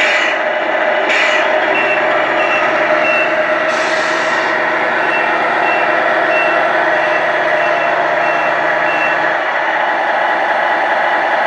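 Remote-control toy truck's electronic sound unit playing a diesel engine drone, with a long run of short reversing beeps from about two seconds in and a few short air-brake-like hisses near the start.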